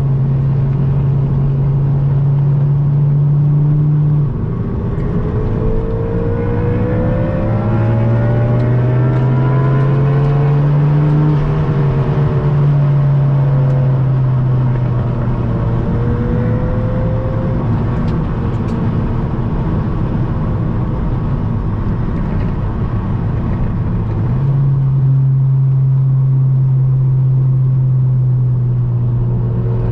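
Turbocharged four-cylinder engine and exhaust of a tuned Volkswagen Golf GTI pulling on the road, its low drone steady for stretches and swelling with throttle changes. A higher engine note climbs and then falls away between about six and twelve seconds in.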